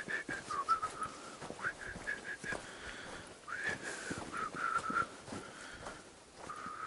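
A person whistling a wavering tune of short held notes, over the crunch of footsteps on a forest trail.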